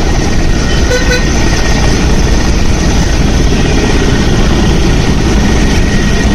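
Large helicopter hovering low as it comes in to land, its main rotor beating rapidly in a loud, steady chop.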